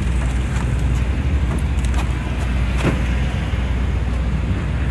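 A steady low rumble with a faint hiss above it and a few faint clicks.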